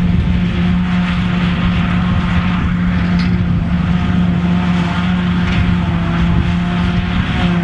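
New Holland T7 200 tractor running under steady load, driving a JF FCT 900 trailed forage harvester as it chops grass and blows it into a trailer drawn by a second tractor alongside. A constant drone of engines and harvester with an even rushing noise, unchanging throughout.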